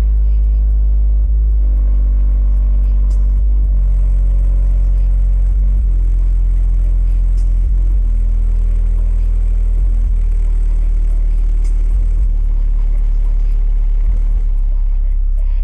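Very loud bass test tones from a 10-inch Kicker Q-Class L7 subwoofer in a custom horn enclosure, stepping down in pitch every couple of seconds as a test sweep.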